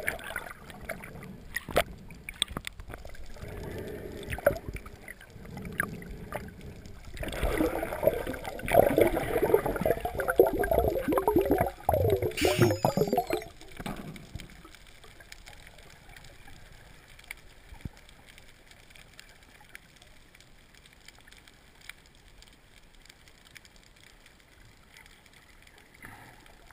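Underwater gurgling and bubbling, muffled through a GoPro's waterproof housing. It is loudest from about seven to fourteen seconds in, then drops to a faint steady crackle.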